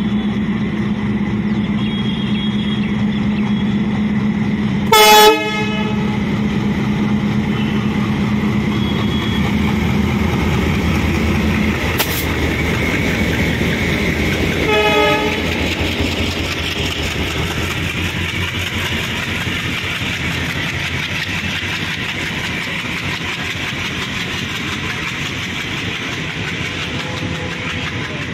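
Indian Railways diesel locomotive passing with its engine running steadily, sounding two short horn blasts about ten seconds apart, the first loud and the second fainter. Once the locomotive has gone by, its passenger coaches roll past with a steady rumble of wheels on the rails that slowly fades.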